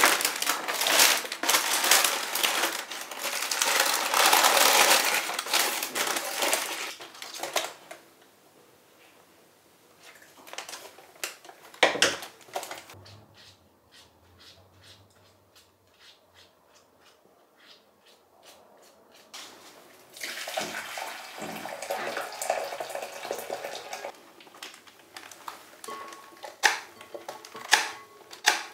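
Water running in two spells, a long loud one at the start and a shorter one about twenty seconds in, with paper rustling and scattered sharp clicks in between and near the end as scissors cut peony stems.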